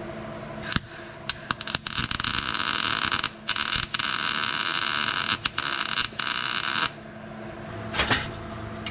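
Welding arc crackling as tack welds are put on an exhaust pipe joint to seal an exhaust leak: a few short bursts about a second in, then a longer run broken by brief pauses that stops about seven seconds in.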